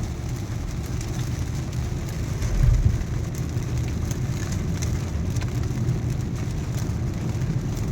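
Raindrops ticking on a car's body and windscreen, over the steady low rumble of the car in slow traffic, with one louder low thump about two and a half seconds in.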